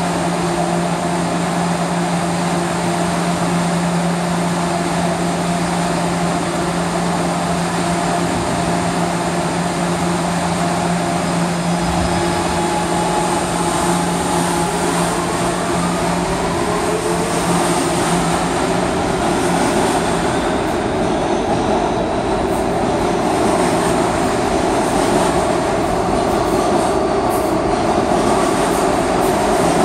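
New York City Subway R211A train standing with a steady hum, then pulling out of the station about twelve seconds in, its propulsion whining upward in pitch as it speeds up. Near the end the passing cars' wheels clatter and click over the rails.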